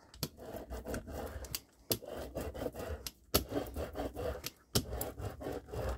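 A brayer rolled firmly over freshly glued paper to smooth it flat, in about four passes of a second or so each, with a sharp click between passes.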